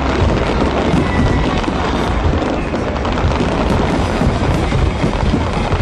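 Music for a fireworks show, with fireworks crackling and bursting under it.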